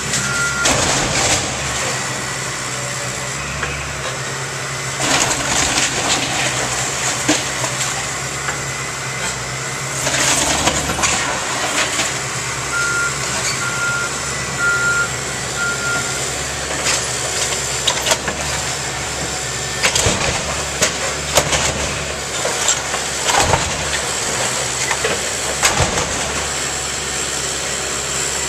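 Caterpillar excavator's diesel engine running steadily while its bucket tears through a wooden garage, with repeated crashes and crunches of breaking boards and debris. A backup alarm beeps several times about halfway through.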